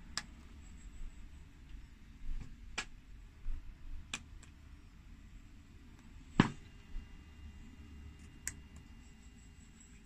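Sharp clicks of pushbutton switches being pressed on an Airbus A320-family overhead electrical panel. There are about five, spread out, and the one near the middle is the loudest, with a low thud.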